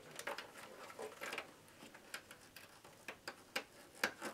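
Faint, irregular small clicks and rustles of SATA data and power cable connectors being handled and pushed onto an optical drive inside a desktop PC case, with gloved hands brushing against the cables and metal chassis.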